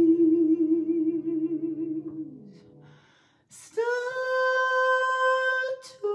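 Woman singing jazz: a long held note with vibrato that slides down and fades, a brief pause, then a new note scooped up from below and held strongly.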